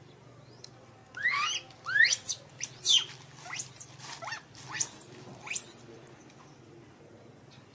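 Newborn baby macaque crying: about six shrill calls in quick succession, each rising and then falling in pitch, starting about a second in and stopping near six seconds.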